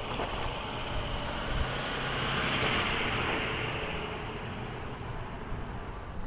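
A car passing: road noise swells to a peak about two and a half seconds in, then fades.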